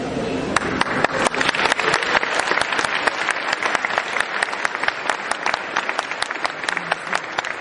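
Audience applauding, a crowd of hands clapping that starts about half a second in and carries on steadily.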